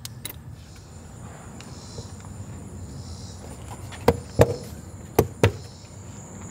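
Four sharp knocks in two close pairs, about a second apart, as a car's plastic engine cover is pressed down by hand and snapped onto its mounts.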